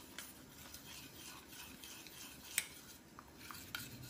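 Metal spoon stirring hot pineapple coulis in a small stainless-steel saucepan to melt the gelatine in it, with a light scraping against the pan and a few clinks of spoon on metal, the sharpest about two and a half seconds in.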